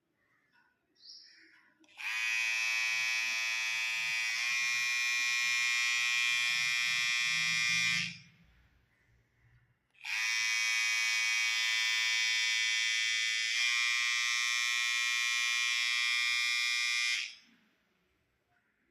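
Electric hair trimmer switched on and running with a high-pitched buzz, twice, for about six and seven seconds, its tone shifting slightly partway through each run.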